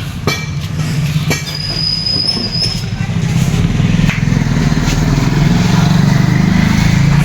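Motorcycle engine running with a steady rapid firing pulse, growing louder from about halfway through. A couple of sharp clicks near the start and a brief high squeal about two seconds in.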